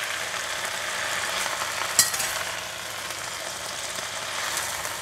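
Water spinach sizzling in hot garlic oil in a stainless steel wok as a metal spatula tosses it. A sharp clink of the spatula against the pan comes about two seconds in.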